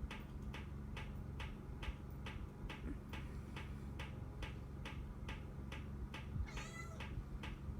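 Regular ticking, about four clicks a second, over a steady low hum, typical of a running ceiling fan. A kitten gives one short, high meow near the end.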